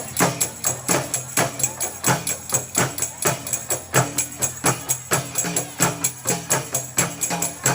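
Qasidah music: rebana frame drums beating a steady, quick rhythm of about three to four strikes a second over a low sustained tone.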